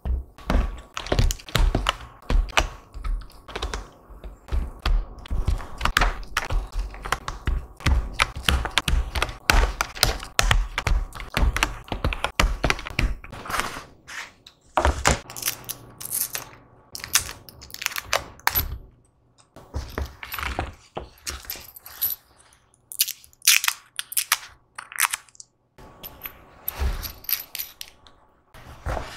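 Mechanical keyboard parts clicking and clacking under the fingers, a rapid run of sharp clicks with low thumps for about the first half, then sparser groups of clicks.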